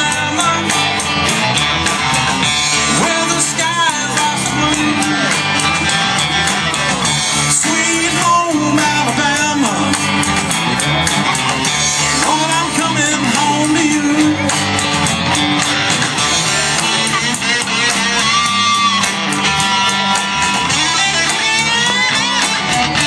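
Live rock band playing a cover song, with electric guitar and drum kit.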